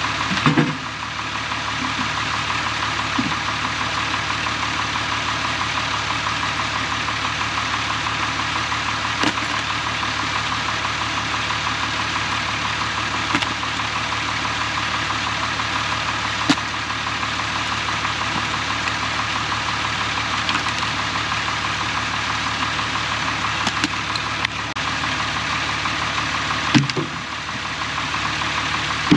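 Tractor engine idling steadily, with a few sharp knocks as firewood rounds are dropped into its steel loader bucket.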